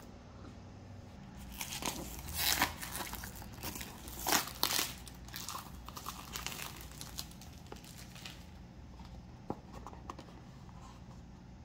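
Clear plastic wrap being torn and crumpled off a small cardboard product box, in irregular crinkling bursts from about two seconds in until about eight seconds in, loudest in the first half. Quieter handling of the box follows, with one small click.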